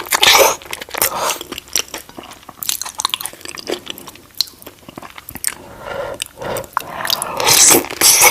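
Close-miked biting and chewing of seafood-boil shrimp: crunching and many short crackly clicks, with louder stretches at the start and again near the end.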